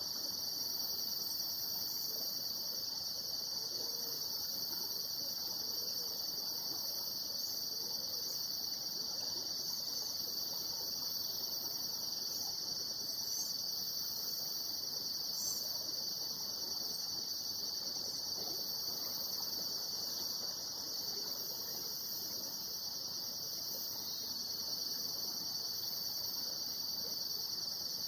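Steady, high-pitched chorus of insects such as crickets, running on without a break.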